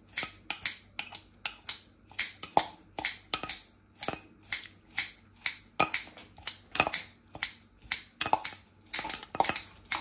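Kitchen knife chopping fresh parsley on a cutting board: quick, even chops, about three a second.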